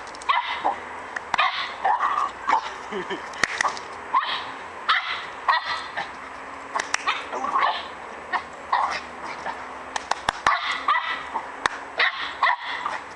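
A Border terrier barking excitedly over and over in short, sharp barks, about one or two a second, with a few sharp clicks among them.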